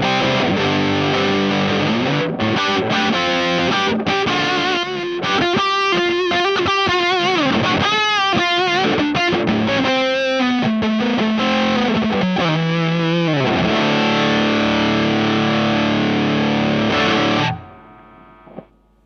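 Electric guitar played through the Space Sounds Spacecraft, a Rat-style distortion pedal, at full gain: heavily distorted riffing with wavering bent notes, then a held chord that is cut off near the end.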